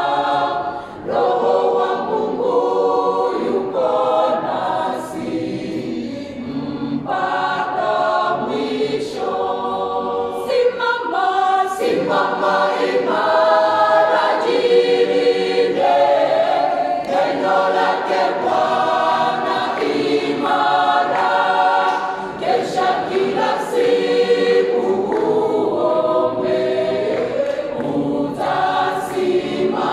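Mixed-voice church choir singing together, conducted, in several parts at once.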